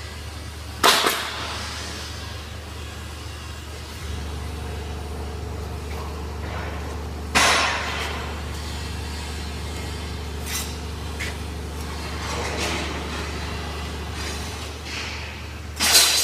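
Steady low machine hum that grows slightly louder about four seconds in, with three sharp knocks spread across the stretch.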